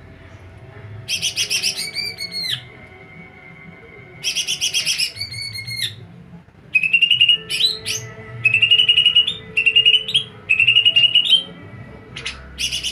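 A songbird in full song: about six loud bursts of very rapid repeated trilling notes, each lasting about a second, some ending in short downward-sliding notes, with brief pauses between them.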